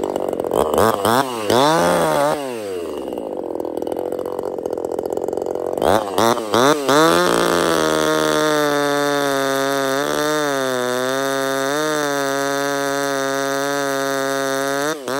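Small 25cc two-stroke top-handle chainsaw, a clone of the Zenoah/Redmax G2500 with an opened-up muffler, revved up and down a few times. Then it is held at high revs while cutting a log, its pitch dipping slightly now and then under load.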